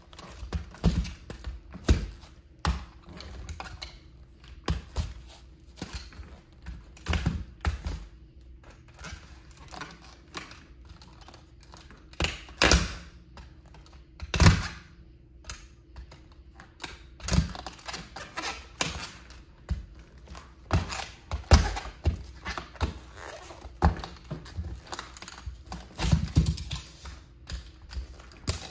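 A scale-model Plymouth Prowler toy car being crushed under a high-heeled platform sandal: irregular cracks, snaps and clicks of its parts breaking, with a few louder cracks about halfway through.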